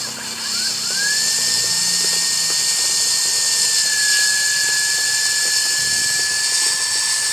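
The battery-powered DC motor and belt-driven spinner shaft of a cotton candy machine spinning up about a second in, then running at a steady speed with a high whine and hiss. It is on a test run, its freshly oiled bearing turning smoothly.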